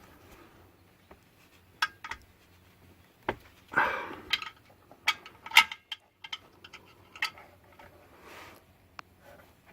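Irregular metallic clicks and short scrapes of a 14 mm wrench working on an oil drain plug, snugging the plug down on its new washer.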